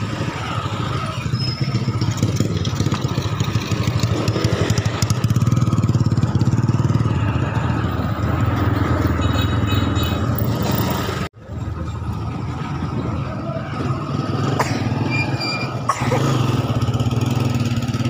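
Small motorcycle engine running steadily, with a low even hum. The sound cuts out for an instant about eleven seconds in, and it gets louder from about sixteen seconds.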